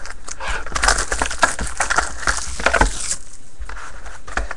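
Trading cards and their packaging being handled: a quick, irregular run of clicks and rustles, busiest for the first three seconds and again near the end.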